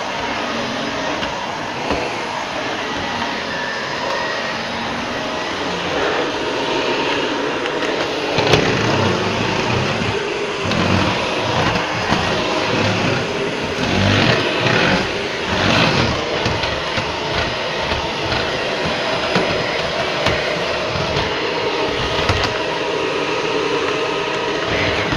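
Shark Rotator Professional Lift-Away upright vacuum cleaner running steadily as it is pushed over the floor, with irregular bumps and surges in the second half.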